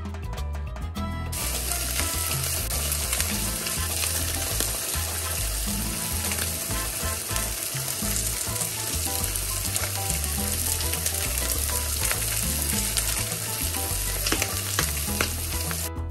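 Salmon steaks sizzling in a hot nonstick frying pan, a dense hiss with fine crackles, starting about a second in and stopping near the end. Background music with a steady low beat runs underneath.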